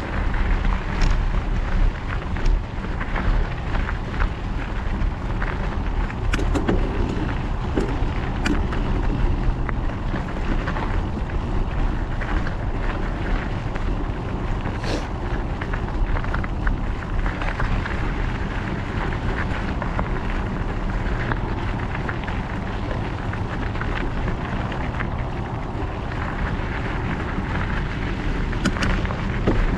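Wind buffeting the microphone over the steady crunch of mountain bike tyres rolling on loose gravel and rock, with scattered clicks and knocks as the bike jolts over stones.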